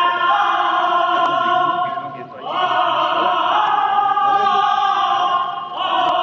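A choir singing held chords in slow phrases. A new phrase enters about two and a half seconds in and another near the end.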